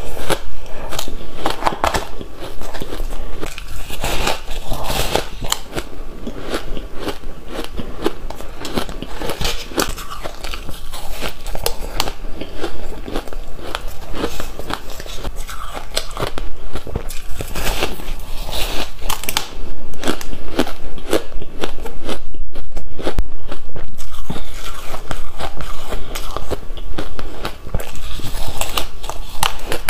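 Ice eating: a block of frosty purple ice bitten and chewed close to a clip-on microphone, a dense run of brittle crunching and crackling, densest and loudest a little past two-thirds through.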